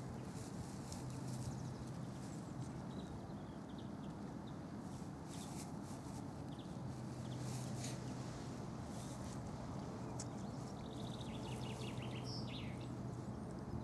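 Puppy digging and rooting in dry grass, with scattered dry rustling and crackling clicks, over a faint steady low hum. A brief high chirping comes near the end.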